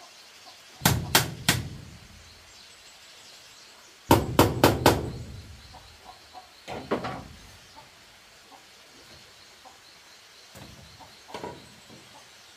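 Sharp blows of a tool against bamboo: three quick strikes, then four more about three seconds later, then a few lighter knocks.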